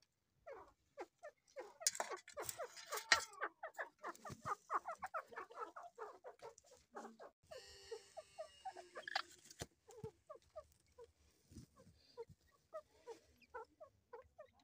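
Newly hatched francolin chicks peeping: many short, rapid chirps a second, with rustling and clicks from a hand in the nesting straw. A harsher rasping sound lasts about two seconds near the middle.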